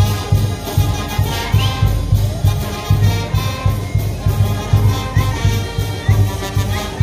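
Brass band music with trumpets and trombones playing over a steady, regular bass beat.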